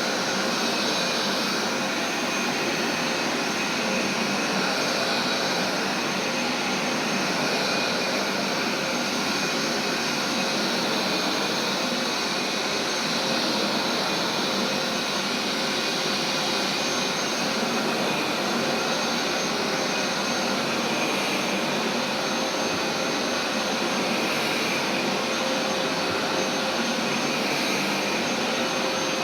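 Carpet steam cleaner's suction motor running steadily, a continuous rushing drone with a high motor whine on top.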